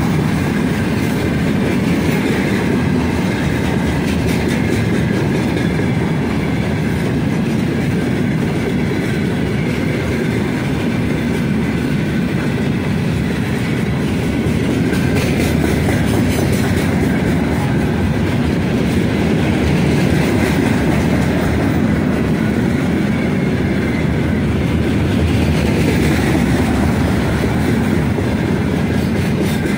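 Heavy freight train of open gondola wagons rolling past close by: a steady rumble of steel wheels on the rails, with clickety-clack as the wheels cross rail joints.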